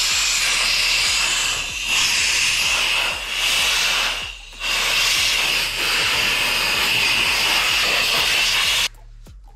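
Compressed-air blow gun blowing a steady, loud hiss of air over a wooden workpiece, with a short stop about four and a half seconds in and a sharp cut-off near the end.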